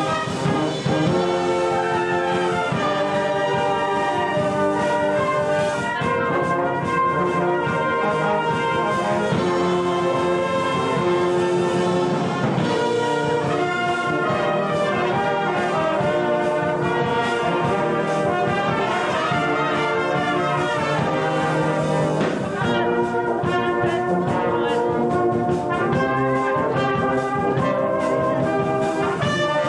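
A brass band plays a piece continuously in many sustained, changing notes. The trombones sound close and prominent.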